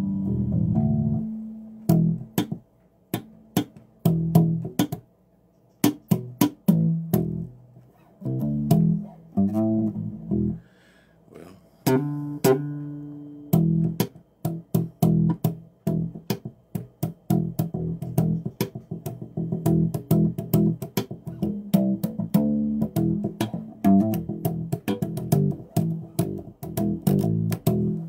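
Five-string electric bass guitar played solo: quick runs of plucked notes with sharp, clicky attacks, broken by a few short pauses between phrases.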